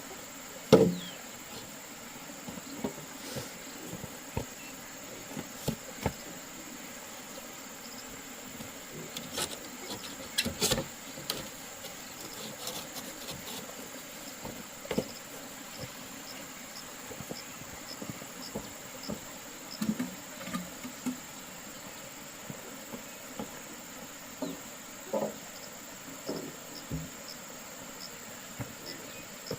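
Steady high-pitched drone of insects, with scattered short knocks and clicks throughout, the loudest about a second in and again near the middle.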